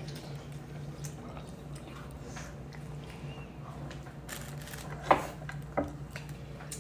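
A child chewing pizza, with soft mouth and handling sounds over a steady low hum. Two sharp knocks come about five and six seconds in, the first the loudest sound.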